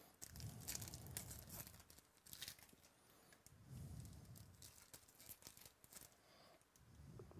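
Faint crinkling and tearing of a Topps Chrome trading-card pack's foil wrapper as it is pulled open by hand, in scattered crackly bursts, with low handling bumps.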